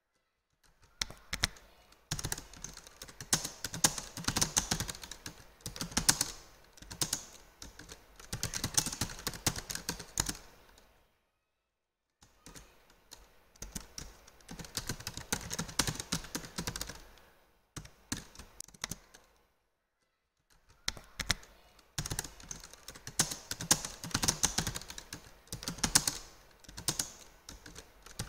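Typing on a computer keyboard: quick runs of key clicks, broken twice by pauses of about a second.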